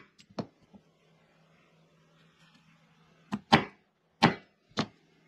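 Hammer striking a letter punch to hand-stamp markings into a small brass spinning top. A light tap near the start, then four sharp strikes in quick succession from about three and a half seconds in.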